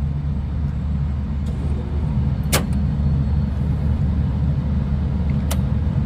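Trane rooftop unit's VFD-driven supply fan running with a steady low drone. Two sharp clicks cut through it, one about two and a half seconds in and a fainter one near the end.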